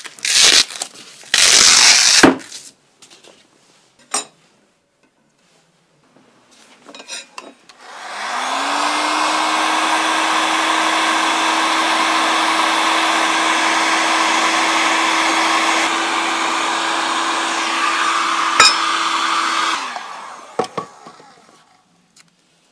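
Heat gun running for about twelve seconds to soften the adhesive of sticky tape on hardwood: a steady blowing hiss over a motor hum that rises as it spins up and sinks as it is switched off. Near the start there are a couple of short, loud handling noises.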